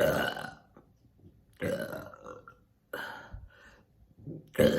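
A woman burping deeply four times, the first and last burps the loudest. The burps are forced up from air she has swallowed, and they come with a gagging feeling.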